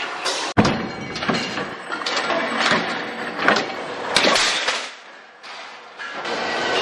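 Foot-pedal operated sheet-metal cutting machine working steel sheet: a run of metallic clanks and knocks over steady workshop machine noise, easing off into a quieter stretch near the end.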